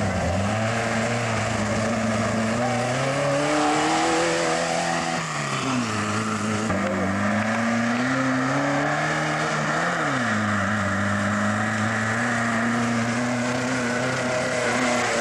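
Off-road dune buggy engine at full throttle. Its pitch climbs and drops sharply twice, about five and ten seconds in, then holds steady and high.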